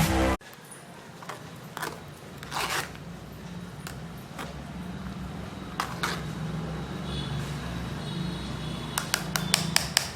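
Blended pineapple-ginger pulp being worked through a strainer: short scraping strokes every second or two, and a rapid run of small clicks and scrapes near the end, over a low steady hum.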